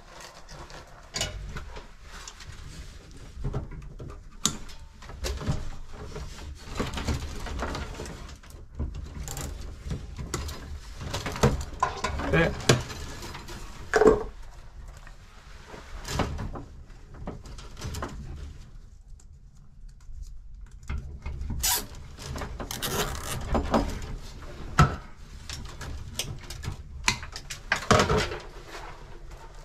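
Gloved hands handling a bundle of electrical wires inside a metal panel enclosure: irregular rustling, clicks and knocks.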